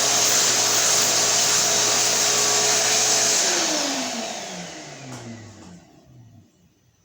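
Shop-Vac Super 1300 wet/dry vacuum running steadily, then switched off about three seconds in, its motor whine falling in pitch as it spins down to a stop.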